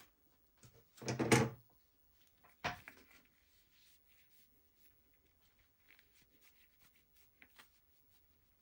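Handling noises from unboxing a knife: a dull knock at about a second in, a sharp clack a second and a half later, then faint small clicks and rustles.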